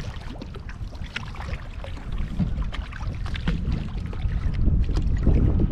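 Wind buffeting the microphone in a steady rumble that grows louder near the end, with scattered sharp ticks and knocks as a hooked channel catfish is pulled in beside a kayak.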